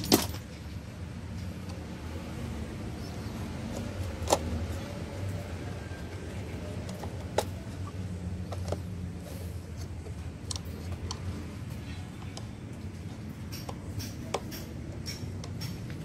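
Plastic drain-valve lever and metal linkage of a top-loading washing machine's drain motor clicking and clacking as it is worked by hand, with sharp clicks near the start, about four and about seven seconds in, and a run of small ticks in the second half, over a low steady hum.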